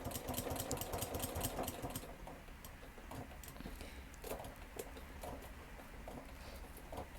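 Sewing machine stitching new loop tape onto a shoe's hook-and-loop strap: a fast, steady ticking run with a hum for about two seconds, then slower, scattered clicks and handling.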